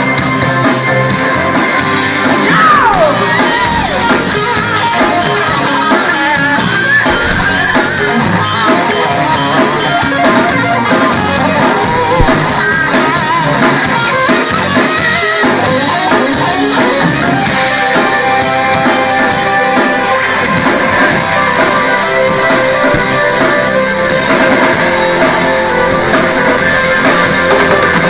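Rock music with electric guitar, a drum kit and singing.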